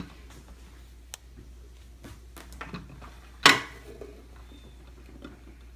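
Dishware on a stone countertop: light scattered clicks and taps, and one louder clink with a short ring about three and a half seconds in, as a plate or glass is set down.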